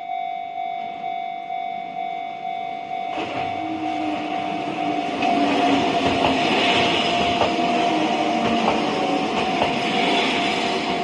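Japanese level-crossing warning bell ringing in a steady, rapid rhythm while an Enoshima Electric Railway (Enoden) train runs through the crossing, its rumble building about three seconds in and staying loud, with sharp clicks from the wheels over the rail joints.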